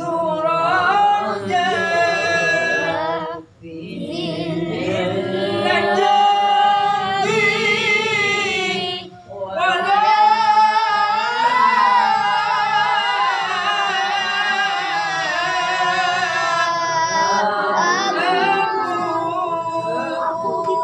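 A man's solo unaccompanied voice chanting Arabic in the melismatic Qur'an-recitation style, in maqam Sikah, with long ornamented phrases and two short breaths, about three and a half and nine seconds in.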